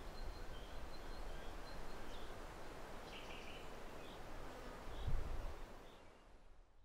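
Riverbank ambience: faint, repeated bird chirps over a steady low outdoor rumble, with a brief low swell about five seconds in. It fades out near the end.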